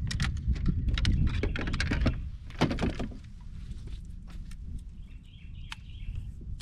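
Clicks and knocks of fishing gear being handled on a plastic fishing kayak's deck, dense for the first three seconds and then stopping, over a steady low rumble of wind on the microphone. Faint bird chirps come in about five seconds in.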